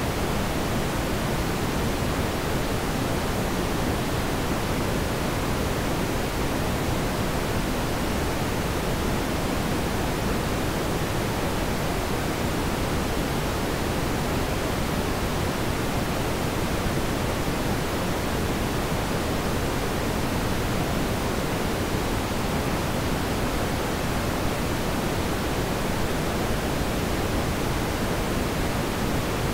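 Steady, unchanging hiss of even noise, with no other sounds standing out.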